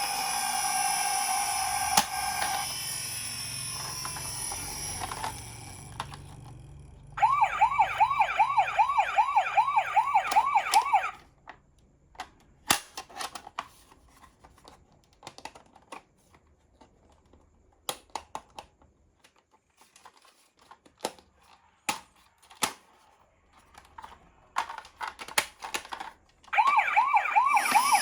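Toy ambulances' electronic sirens. A steady tone fades away, then a fast warbling siren sounds for about four seconds. A long quiet stretch of scattered small clicks and taps follows, and the warbling siren starts again near the end.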